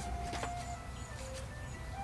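Background music: a simple melody of held, stepping notes, with a steady low hum beneath and a sharp click about half a second in.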